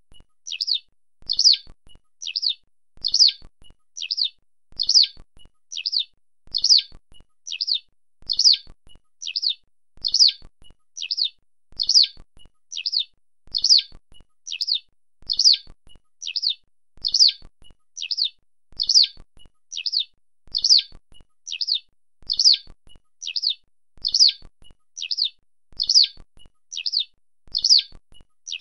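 Eurasian skylark giving its call: short, high chirping notes repeated evenly, roughly every half second.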